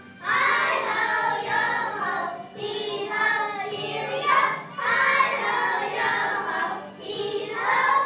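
Children singing a song, in phrases of about two seconds with short breaks between them.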